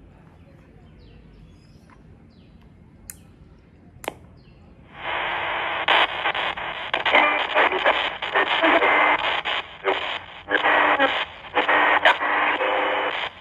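XHDATA D-220 portable radio on the shortwave band being tuned: two clicks, then about five seconds in static comes on suddenly and sweeps through hiss, faint whistles and snatches of station audio. Shortwave reception has come back once the external speaker is disconnected.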